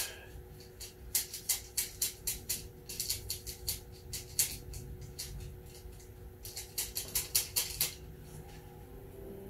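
Runs of small, sharp clicks and ticks, several a second, in three spells, from hands working a fastening on the trike's metal frame, over a faint steady hum.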